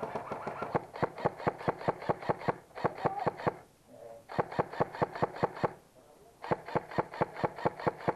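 Airsoft gun firing on full auto in several bursts of rapid, evenly spaced clicks, about six or seven shots a second, with short pauses between bursts.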